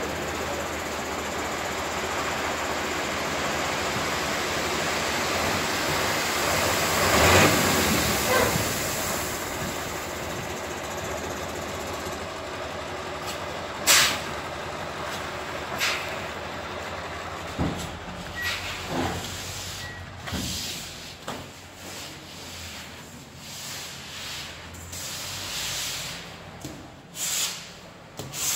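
Tipper truck running with its bed raised while a load of sand slides out in a steady rush that swells about seven seconds in and dies away by about ten seconds. A single sharp bang comes about fourteen seconds in, followed by scattered short knocks.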